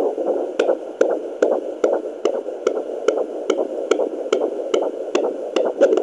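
Fetal doppler picking up a 17-week fetus's heartbeat: a fast, even pulse of about two and a half beats a second, roughly 145 a minute, over a steady hiss. The rate lies within the 140 to 160 the mother reads, normal for a fetus.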